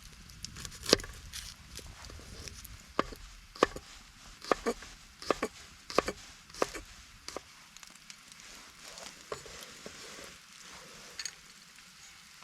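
Kitchen knife chopping vegetables on a cutting board: a string of sharp, irregular strikes, thinning out and getting quieter after about seven seconds.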